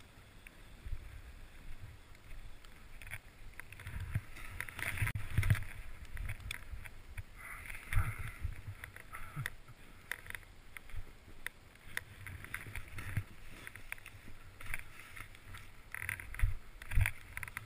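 Movement through snow: uneven scraping and crunching, with wind buffeting the microphone in low rumbles.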